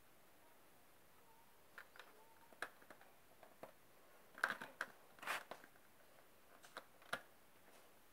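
LEGO plastic pieces being handled and pressed into place: a scattering of small, faint clicks and taps, busiest about four and a half to five and a half seconds in.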